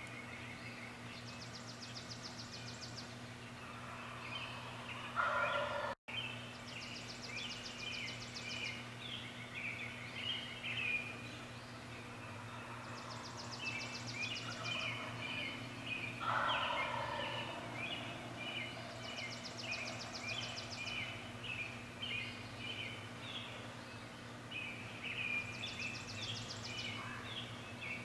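Wild turkey gobbling twice, about five seconds in and again about sixteen seconds in, the loudest calls in a dawn chorus of songbirds chirping and trilling, with a steady low hum underneath.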